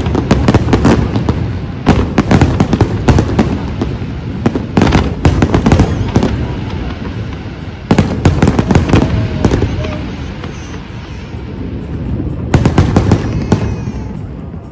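Fireworks display: dense volleys of crackling, popping and bursting shells in quick succession. The volleys ease off about ten seconds in, then a last crackling volley dies away near the end.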